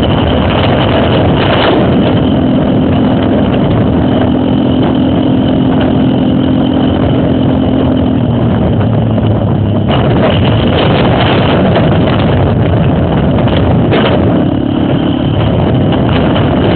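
Trail motorcycle engines running loud and steady, the engine note dropping slightly about eight seconds in.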